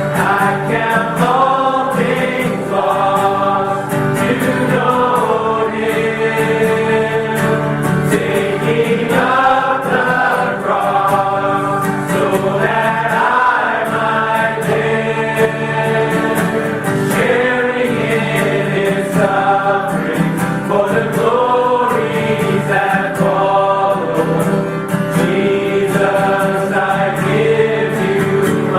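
Gospel-style choral music, several voices singing sustained melodic lines.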